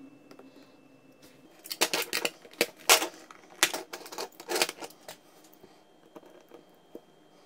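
A quick run of sharp metallic clicks and rattles for about three seconds, starting a little under two seconds in: a small screwdriver and coil being worked against the metal deck of a rebuildable dripping atomizer.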